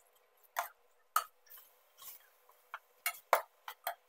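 Metal spoon clinking and scraping against a stainless steel pot while stirring raw pork with curry paste: irregular sharp clicks, coming faster in the last second.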